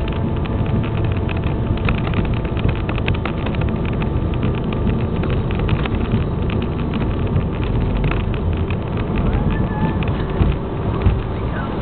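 Cabin noise of a CRJ-900 regional jet on its takeoff roll: its two rear-mounted GE CF34 turbofans at takeoff thrust give a loud, steady rumbling roar, with a constant patter of small knocks and rattles as it speeds down the runway.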